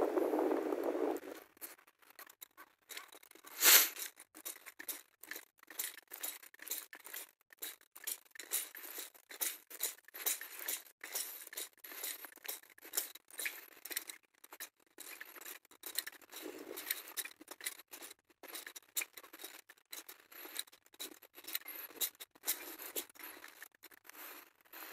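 A dense frog chorus stops about a second in. Irregular faint clicks, crackles and rustles follow, with one louder sharp crack about four seconds in.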